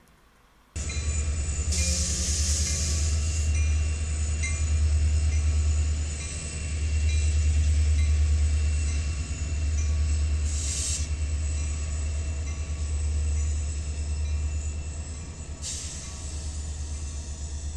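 Diesel locomotives running as a train moves past, a loud, steady deep rumble that starts abruptly under a second in. Three short hissing bursts cut in over it, near the start, about the middle and near the end.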